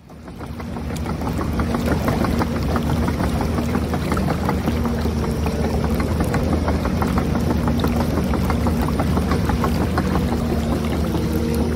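Steady whine of the electric drive motors and gearboxes of a radio-controlled truck and a tracked toy excavator (Huina 1550) straining against a tow chain in mud, with rapid clicking from the gears and tracks. It fades in over the first couple of seconds.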